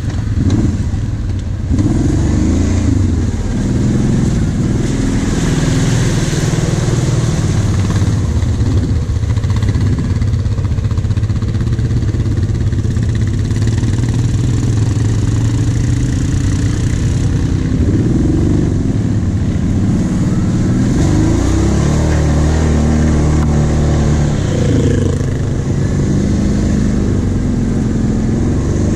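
Quad bike (ATV) engine running, its pitch rising and falling again and again as the throttle is worked, with a steadier stretch about two-thirds of the way through.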